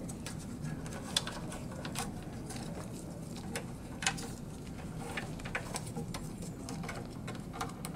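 Scattered light clicks and rustles of gloved hands working plastic waste tubes through a printer's metal frame, over a faint steady low hum.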